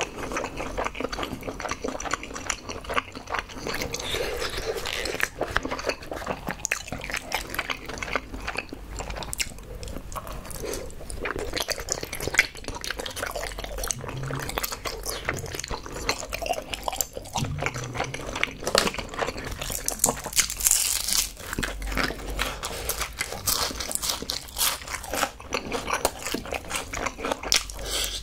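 Close-miked chewing with frequent crunches and crackles: a person eating crispy fried chicken.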